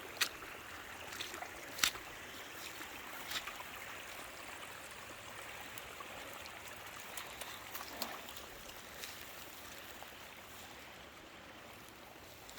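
Water trickling and running in a small stream, a steady faint rush, with a few sharp clicks or snaps on top, the loudest about two seconds in.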